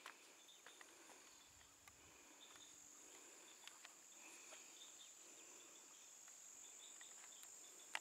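Faint, steady, high-pitched insect drone, with a few soft clicks that may be footsteps.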